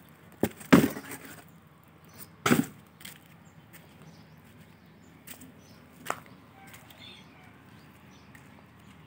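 Lead tree (leucaena) branches and twigs snapping: three sharp cracks in the first three seconds, the loudest just under a second in, then a few lighter clicks.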